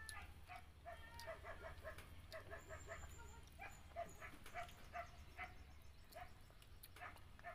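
Faint animal calls: short high-pitched yelps or whimpers repeated two to four times a second, with scattered light clicks and a low steady hum underneath.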